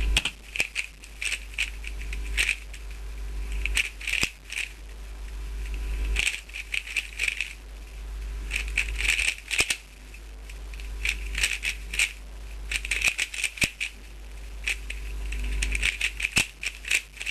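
Dayan Guhong 3x3 speedcube being turned at speed during a timed solve: bursts of quick plastic clicking and clacking, broken by short pauses between groups of moves.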